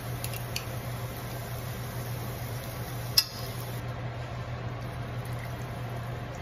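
Pork, onion and kimchi sizzling faintly in a saucepan over a steady low hum, with a few light clicks near the start and one sharp clack about three seconds in.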